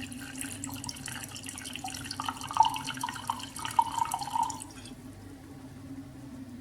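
Vodka poured from a bottle into a glass: a gurgling, trickling pour that stops about five seconds in.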